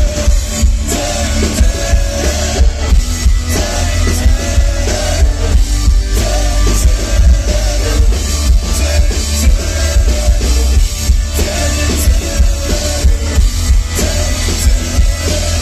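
Live rock band playing loud with a driving drum kit, heavy bass and guitars, with singing in the mix, recorded close to the stage so the low end is boomy.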